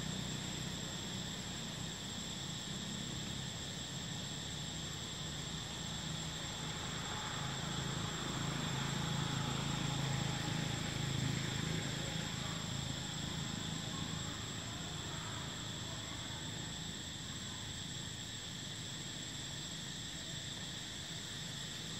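Steady insect chorus in the trees, two high unbroken tones, with a low rumble underneath.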